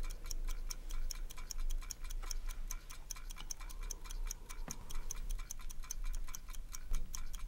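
A clock ticking: rapid, even ticks that go on steadily.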